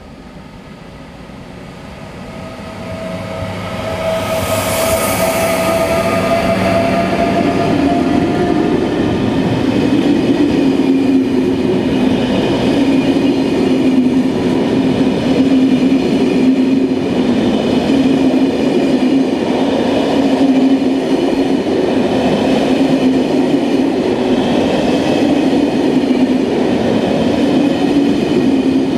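An SNCB electric locomotive hauling passenger coaches approaches and passes, growing loud over the first few seconds. A whine, rising slightly in pitch, is heard for several seconds as the locomotive goes by. The coaches then roll past with a steady rumble of wheels on rail.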